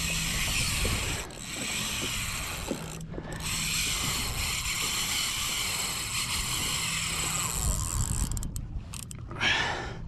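Spinning reel running under load from a hooked fish: a fast mechanical ratcheting buzz from the drag and gears in long stretches, broken by a few short pauses.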